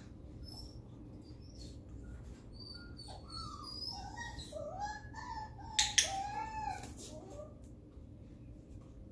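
A Cavalier King Charles Spaniel puppy whining in a string of high, bending whines, with a training clicker giving a sharp double click about six seconds in.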